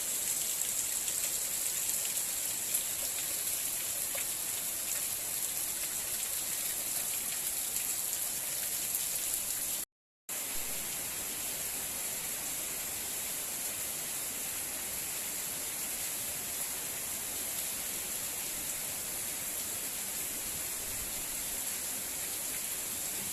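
Heavy rain falling steadily, a dense even hiss. It cuts out for about half a second near the middle, then carries on a little quieter.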